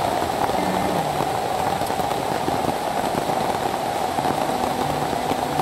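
Steady rain, a constant even hiss of falling water with no breaks.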